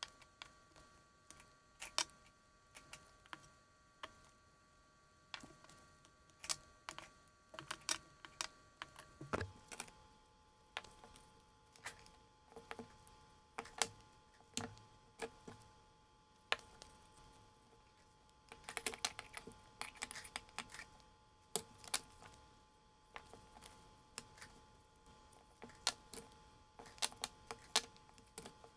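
Metal spring clamps clicking and clacking as they are squeezed open and snapped onto glued leather pieces, with clamps and leather knocking on a wooden workbench. Scattered sharp clicks and knocks with short quiet gaps between them.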